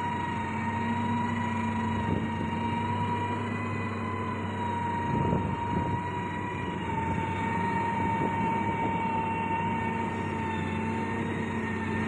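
Diesel engines of heavy road-building machinery running steadily: a low hum under a steady high whine, with a brief rougher rumble about five seconds in.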